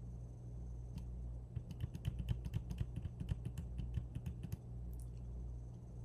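Computer keyboard keys tapped rapidly and repeatedly, short sharp clicks at about six or seven a second for about three seconds, over a steady low hum.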